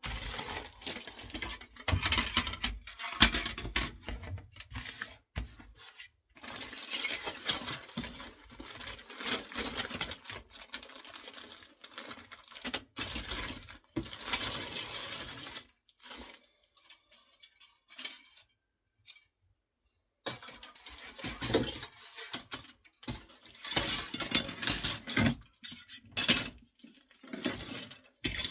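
Plastic model-kit parts on their sprues being handled and set down on a table: irregular clacks, rattles and rustling, with a quiet pause about two-thirds of the way through.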